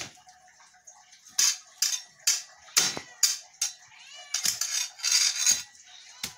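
A push broom slapping and scraping on a concrete floor as it swats at spiders: about ten sharp hits, roughly two a second, with a brief high squeak about four seconds in.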